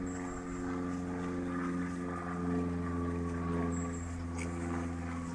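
An engine running with a steady, unchanging low drone.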